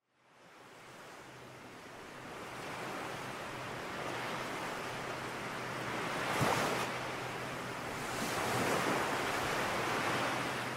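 Ocean surf: waves washing and breaking, fading in from silence and swelling louder about two-thirds of the way through and again near the end. A faint steady low hum runs underneath.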